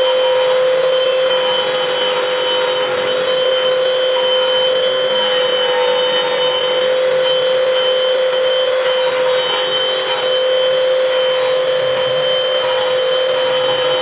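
CNC router spindle running steadily: a constant whine over a hiss.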